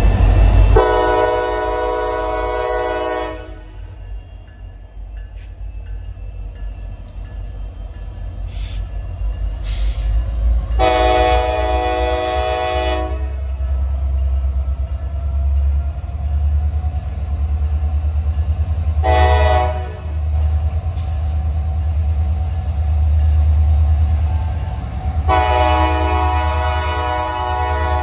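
Diesel freight locomotive air horn sounding two long blasts, a short one and a final long one, the standard signal for approaching a grade crossing, over the low rumble of the locomotives' diesel engines as the train pulls away.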